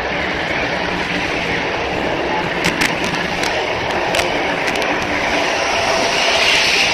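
Evangelion-liveried 500 series Shinkansen pulling out of the station, its cars running past the platform with a steady rolling rush. A few sharp clicks come about three to four seconds in.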